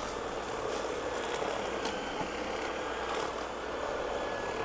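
Mammotion Yuka 2000 robot lawnmower with its sweeper kit running: a steady whir from the cutting blades and the spinning sweeper roller underneath, with a few light ticks as it picks up leaves.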